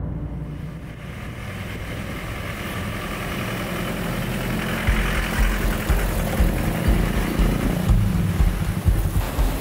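Street traffic going by, vehicle engines and tyre noise fading in at the start. From about halfway, wind rumbles in gusts on the microphone.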